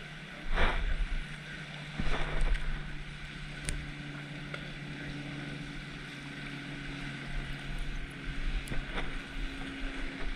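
Wind buffeting the microphone in gusts, strongest about half a second and two seconds in, over a steady low hum that shifts to a higher pitch about five seconds in.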